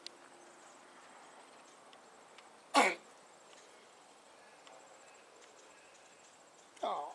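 A pet cat coughing: one sharp cough about three seconds in, then a second, longer hacking cough that falls in pitch near the end. The owner suspects spiders or flies the cat ate went down the wrong way.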